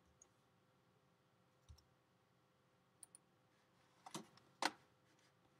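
Sparse clicks of a computer keyboard and mouse in near silence: a few faint clicks in the first three seconds, then louder ones about four seconds in.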